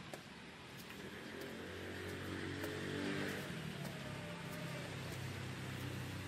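Road traffic: a motor vehicle's engine and tyre noise grow louder over the first three seconds, then hold at a steady hum.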